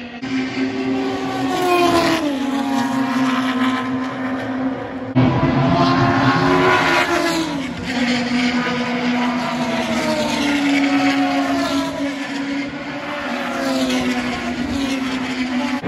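Engines of historic pre-1985 Formula 1 cars running and revving, several at once, their pitch repeatedly rising and falling. The sound gets suddenly louder about five seconds in.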